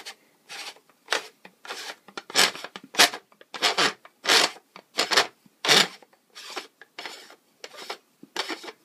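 A series of short rubbing or scraping strokes, about two a second, uneven in loudness.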